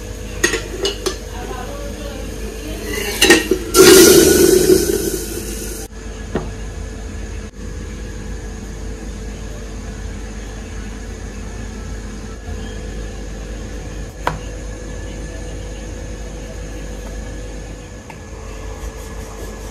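Metal utensils clink a few times, then a loud hiss of hot oil starts about four seconds in and dies away over about two seconds: the tadka of heated oil for dal. A steady hum runs underneath, with one more clink later.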